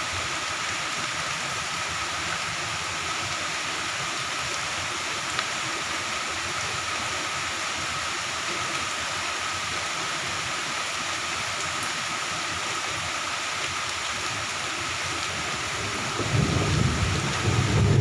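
Moderate to heavy rain falling, a steady, even hiss. About sixteen seconds in, a loud low rumble comes in under it.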